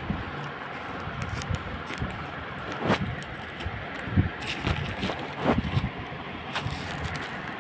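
Plastic courier mailer bag rustling and crinkling as it is handled, with irregular sharp crackles over a low steady noise.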